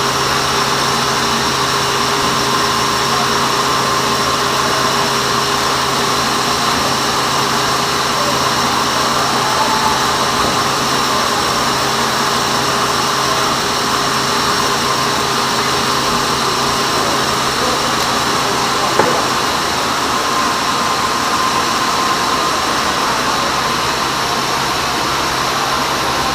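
Band sawmill running steadily, its motor and blade giving an even, unchanging machine noise with constant tones, and a single brief click about two thirds of the way through.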